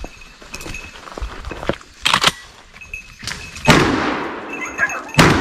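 Two gunshots about a second and a half apart, the first with a long echoing tail: a hunter firing at a deer that is brought down.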